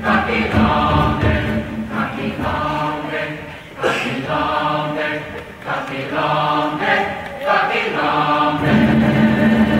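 Mixed chamber choir singing short, repeated chanted phrases with a hand drum, the voices swelling into a held chord near the end.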